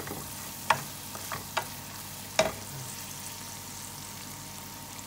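Sliced onions and whole spices frying in oil in a metal pan, a steady sizzle, the onions softened after about ten minutes. A wooden spoon stirring them knocks against the pan four times, the loudest about two and a half seconds in.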